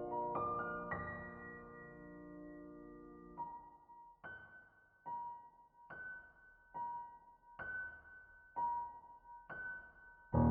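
Soft piano music. A held chord fades out, then a sparse repeating figure of single notes, alternating between two pitches about once a second, until a fuller, louder passage comes in at the very end.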